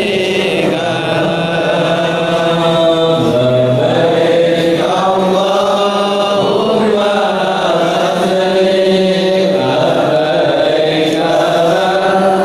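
A group of voices chanting an Islamic devotional song in long, held phrases.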